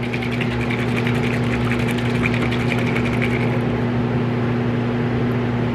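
A bottle of Createx airbrush paint being shaken hard, the little mixing ball inside rattling in rapid clicks that stop about three and a half seconds in. A steady low hum runs underneath.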